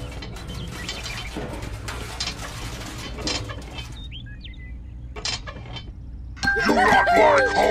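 Light clicks and scrapes of a small plastic screw cap being twisted off a toy tanker. A couple of short bird chirps come about four seconds in, and near the end loud sheep bleating with music starts.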